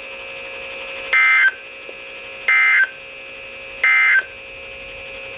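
Three short identical bursts of buzzy data tones, each about a third of a second long and about 1.4 seconds apart, over a faint steady hum from the radio. This is the Emergency Alert System end-of-message (NNNN) SAME code on a NOAA Weather Radio broadcast, which closes the warning message.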